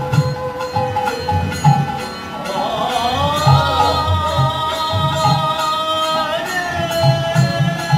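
Bengali devotional kirtan music: regular drum strokes and small hand cymbals (kartal) over a harmonium. A long wavering melody line enters about two and a half seconds in and holds until about six and a half seconds.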